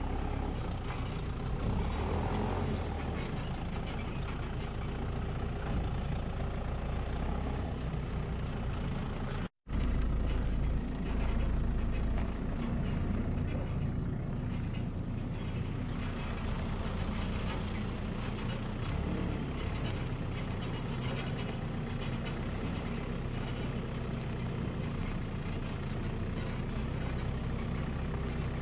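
A farm machine's engine running steadily, a low rumble heard from inside the cab. The sound cuts out for an instant about ten seconds in, then carries on.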